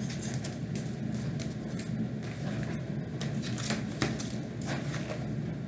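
Paper and packaging rustling and crinkling as items are handled, with scattered light clicks, over a steady low background hum.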